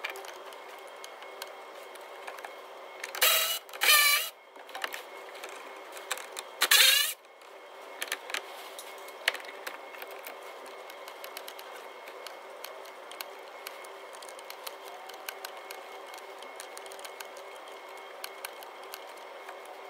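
Ratchet work on engine bolts: three short whirring bursts of a battery-powered ratchet in the first seven seconds, then a long run of irregular ratchet clicks.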